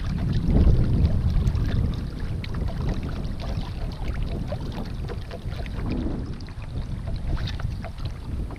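Wind rumbling on the microphone, with water lapping and ticking against a kayak's plastic hull in many small, irregular splashes.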